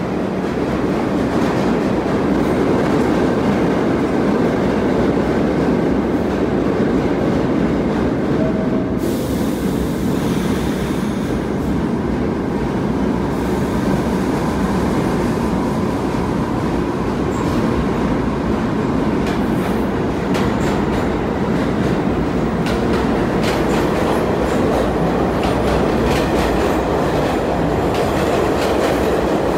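R46 subway train pulling out of the station and gathering speed, with a steady rumble of motors and wheels. A hiss lasts for a few seconds from about nine seconds in, and wheel clicks over the rail joints fill the second half.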